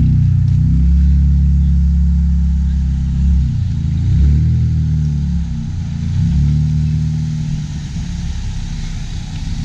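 Exhaust of an EcoBoost Mustang's turbocharged four-cylinder running with a low drone, its pitch dipping and rising a few times as the engine is blipped lightly.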